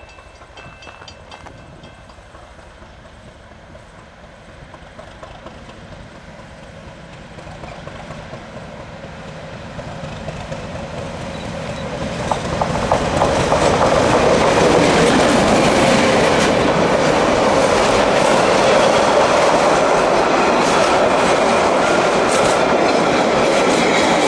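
Tasmanian Y-class diesel locomotive Y4 hauling a passenger train approaches, growing steadily louder until it passes close by about halfway through. After it has passed, the carriages roll by with a loud, steady rumble of wheels on the rails.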